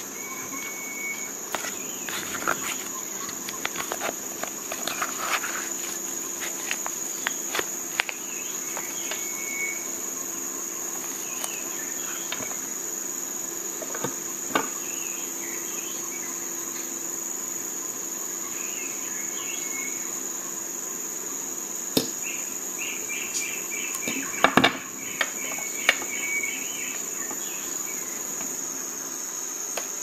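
A steady high-pitched chorus of insects, crickets by the sound, with scattered sharp clicks and taps, the loudest over twenty seconds in. A few short high chirps sound over it, with a quick run of them near the end.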